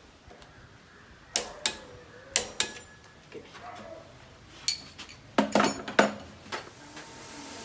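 Sharp metallic clinks and knocks, about a dozen in two clusters, as of tools or metal fittings being handled during an air-conditioner installation. A steady hiss starts near the end.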